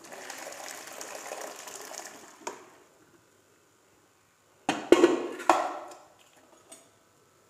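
Liquid poured into hot tomato masala in a wok, splashing for about two and a half seconds and ending in a knock. About five seconds in there are a few loud knocks and a wet splatter as boiled kidney beans are tipped into the wok.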